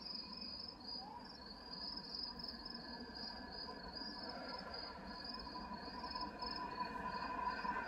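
Crickets chirping in a steady pulsing chorus, with the faint hum of a distant approaching train slowly growing louder underneath.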